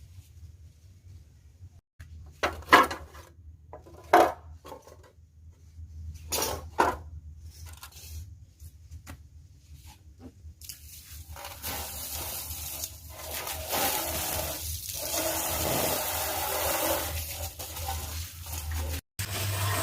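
A few sharp knocks and scrapes of hard objects being handled, then a steady hiss that starts a little past halfway, over a low hum throughout.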